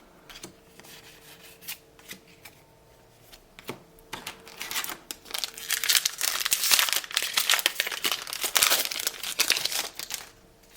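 Trading card booster pack wrapper crinkling and being torn open, starting about four seconds in and loudest in the latter half, after a few soft clicks of handling.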